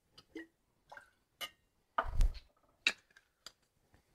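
Light clinks and knocks of cocktail tools being handled: a metal jigger of lime juice emptied into a stainless cocktail shaker tin and set down with the juice bottle. A louder dull knock comes about two seconds in, then a sharp click.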